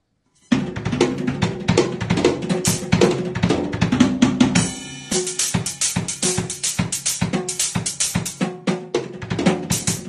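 Acoustic drum kit played in a fast, busy groove of bass drum, snare and cymbals, starting about half a second in.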